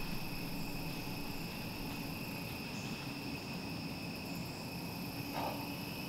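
Steady chorus of crickets and other insects, several high tones held without a break. About five seconds in there is a brief soft sound.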